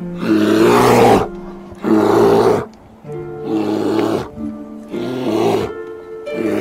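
Grizzly bear roaring in a series of short, loud roars, about one every second and a half, over background music.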